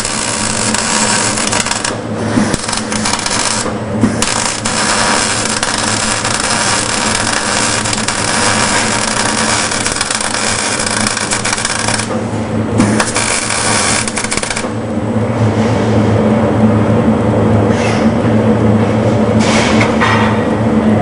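Electric arc welding: a dense, loud crackling hiss from the arc as a bead is laid, stopping briefly about twelve seconds in, starting again for a couple of seconds, then only short weaker spells near the end. A steady electrical hum runs underneath.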